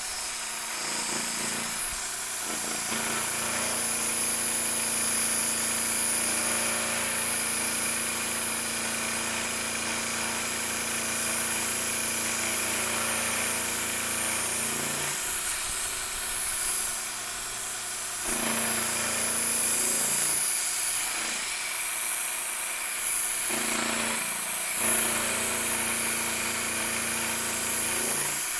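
Milling machine running and cutting a block of annealed A2 tool steel: a steady motor hum with a high cutting hiss above it. The sound shifts a few times past the middle as the cut changes.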